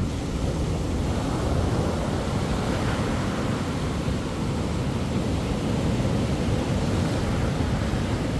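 Sea waves washing onto a beach, a steady rushing surf with a deep rumble, swelling slightly in the first couple of seconds.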